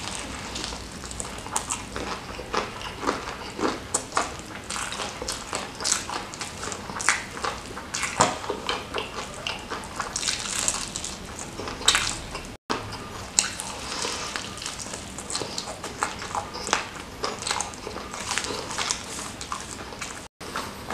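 Close-miked eating of ayam geprek, spicy smashed crispy fried chicken with rice: irregular crunchy bites and wet chewing and smacking, eaten by hand. The sound cuts out briefly twice.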